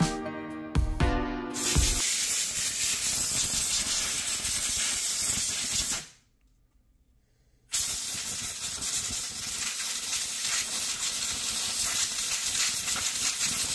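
Aerosol spray can hissing in two long bursts, about four and six seconds long, with a short silent gap between. The spray is going onto a nearly seized blower motor to free it up. Background music plays briefly before the first burst.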